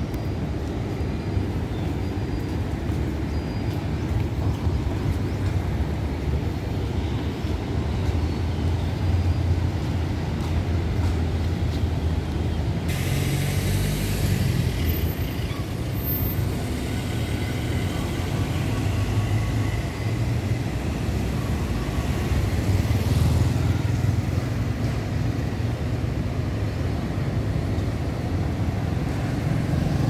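City street traffic noise: a steady low rumble of vehicles, with a motorcycle going by near the end.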